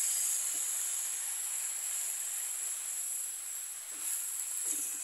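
Green sorrel leaves and fish curry sizzling in a stainless steel wok: a steady hiss that slowly gets quieter. The metal ladle stirs and scrapes lightly near the end.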